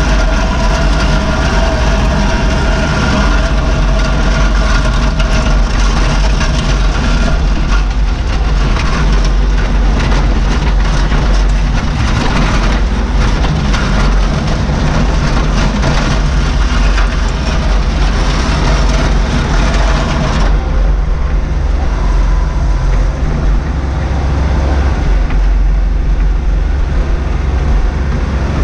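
Bobcat 463 skid steer's diesel engine running steadily while the machine drives and plows snow, with a constant clatter over it. A steady whine sits over the engine for the first several seconds. About twenty seconds in, the higher hiss and clatter drop away abruptly while the engine carries on.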